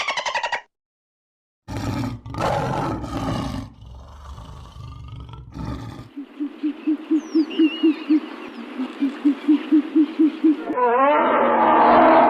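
Wild animal calls in quick succession: a loud, rough roar for about four seconds, then two runs of low, evenly spaced hoots at about four a second. Near the end a louder, noisier call begins.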